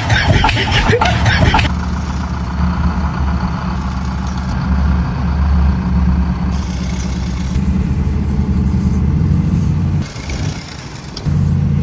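An engine running steadily with a low hum; it drops away briefly near the end, then comes back.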